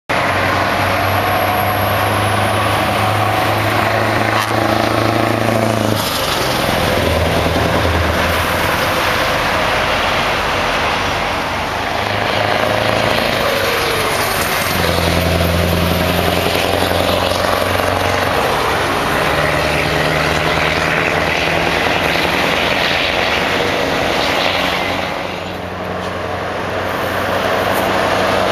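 Scania V8 truck engines running and pulling away. The engine note steps up and down several times as the trucks rev and change gear, with a falling pitch sweep about halfway through.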